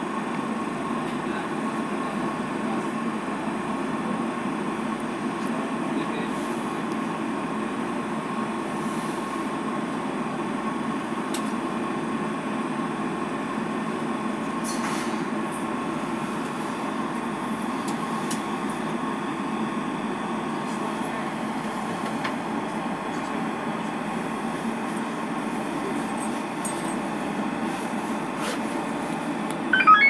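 Steady hum inside a stationary DLR B2007 Stock train, its onboard equipment and ventilation running with a faint steady high tone, while the train stands at the platform held by a fault.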